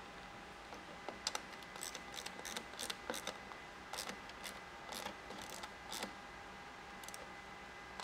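Small socket ratchet clicking in short, irregular runs as a nut is tightened down on a circuit breaker's terminal post.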